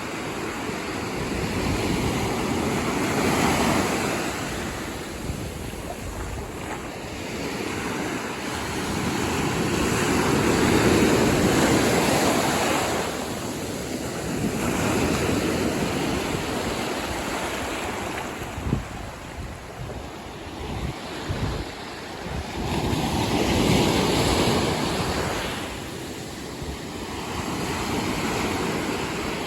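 Ocean surf breaking and washing up the beach, the roar swelling and fading every few seconds as each wave comes in. Wind buffets the microphone in gusts, most around two-thirds of the way through.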